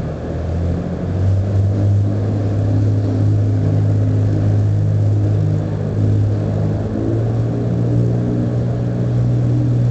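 An engine drones steadily at a low pitch. Its pitch steps up slightly about seven seconds in.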